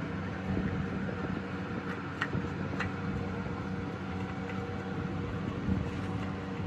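A steady low mechanical hum of running machinery, with a few short light clicks a little past two and three seconds in.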